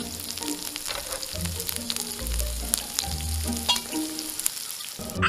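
A steady sizzling crackle with many scattered pops, over background music with a slow, low bass line; the crackle cuts off abruptly just before the end.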